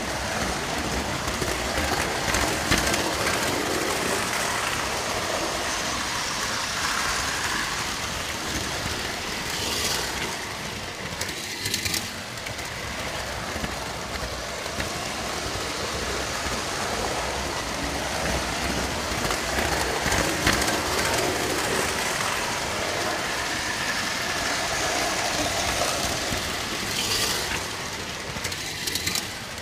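Large-scale model train running along its track, a steady rumble of wheels on rails heard from a camera riding on the train, with a few sharp clicks.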